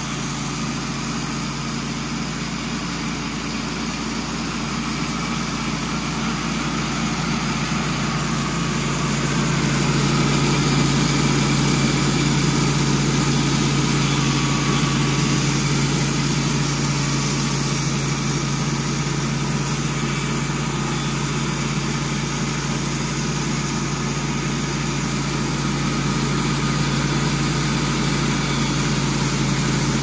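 Wood-Mizer LT15 Wide band sawmill running under load as its band blade saws lengthwise through a large cypress log: a steady engine drone with the hiss and rattle of the blade in the wood. It grows louder between about four and ten seconds in.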